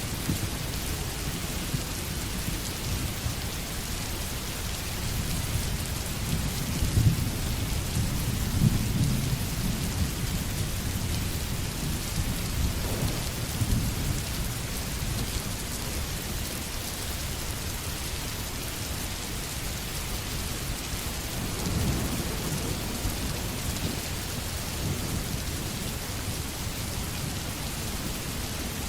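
Food sizzling steadily in hot oil in a pan, with low rumbling swells now and then.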